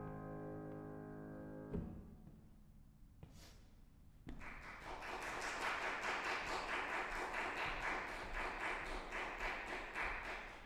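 A final sustained chord on a Steinway concert grand piano rings out, then cuts off with a soft thump under two seconds in. After a short hush, applause starts about four seconds in and goes on steadily.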